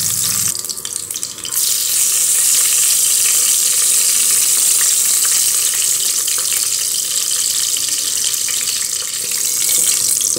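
Whole spices (cinnamon sticks, cloves and cardamom) sizzling in hot oil and ghee in a pressure cooker, a steady hiss with small crackles. The sizzle dips briefly about half a second in, then runs on evenly.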